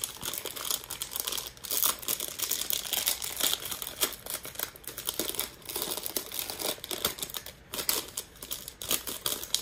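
A plastic blind-bag packet crinkling and tearing as it is handled and ripped open by hand, with dense, irregular crackling.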